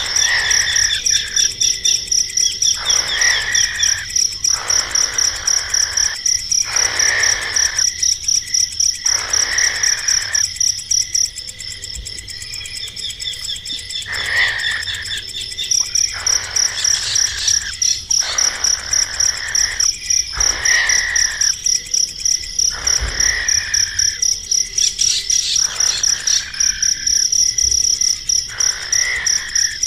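A cricket chirping loudly in a fast, steady pulse of about three chirps a second, falling silent for a few seconds midway. Short hissy sounds come every second or two alongside it.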